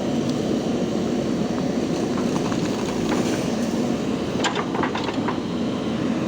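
JCB 3DX backhoe loader's diesel engine running steadily while working, with a few sharp metallic knocks about four and a half to five seconds in.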